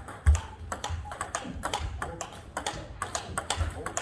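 Table tennis balls clicking off rubber bats and bouncing on the tabletop in a topspin rally, many sharp, irregular clicks with more from neighbouring tables. One heavy low thump comes shortly after the start.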